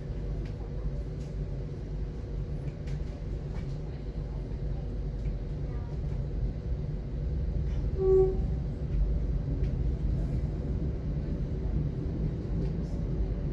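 A train running along, heard from inside the passenger carriage: a steady low rumble with a faint steady hum. A brief tone sounds about eight seconds in.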